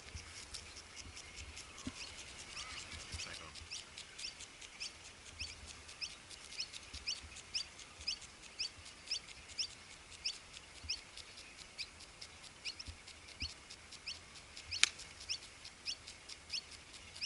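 A 7-iron striking a golf ball in a low punch shot: one sharp click near the end, the loudest sound. Throughout, a high, regular chirping or ticking repeats about two or three times a second.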